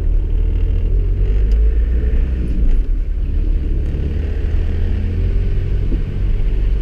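Car engine and tyre rumble heard from inside the cabin while driving slowly round a corner and along a narrow street; a steady low rumble, the engine note rising slightly in the first couple of seconds.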